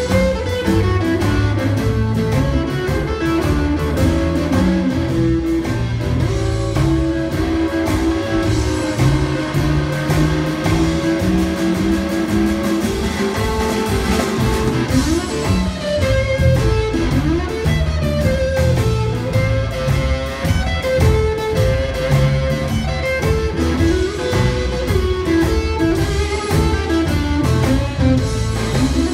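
Live electric blues band playing, with guitar and long sustained melody notes that slide up and down in pitch.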